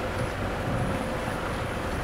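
Steady in-cabin hum of a car driving on the road: engine and tyre noise at an even level, with no sudden events.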